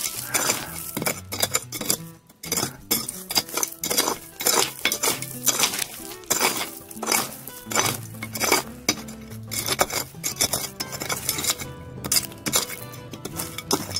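A metal hand digging tool scraping and striking packed gravel and rock, with repeated irregular metallic clinks and rattling stones as material is dug out from under a steel rail grizzly.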